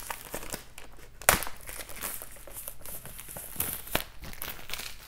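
Clear plastic wrap being peeled and pulled off a cardboard razor box, crinkling in irregular crackles with one louder crack about a second in.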